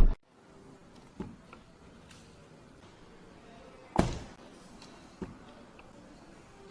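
Car door of a Honda saloon: a loud shut right at the start, then a light latch click about a second in, the door shut with a solid thunk about four seconds in, and another light click about a second later.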